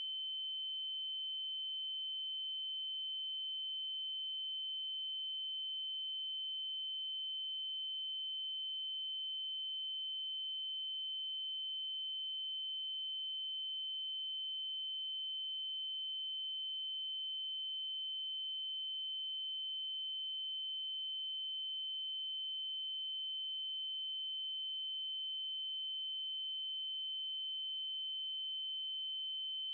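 Continuous electronic triangle-wave tone at 3072 Hz, a steady high-pitched pure-sounding whine with faint overtones, holding constant pitch and level.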